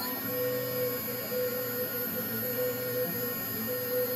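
StoneyCNC router running a ball-nose finishing pass over a wooden relief carving: a steady spindle whine and hum, with a mid-pitched tone that cuts in and out every half second or so.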